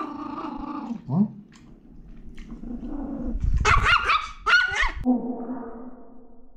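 Russian toy terrier growling at a slice of meat held out in front of it, snarling with bared teeth and trying to snap at it. About halfway through it breaks into a quick run of shrill, high-pitched barks, then settles back into a steady growl.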